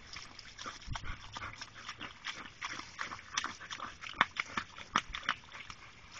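English springer spaniel snapping and biting at the water from a garden hose: quick, irregular splashy snaps and slurps, with a few sharper, louder ones toward the middle.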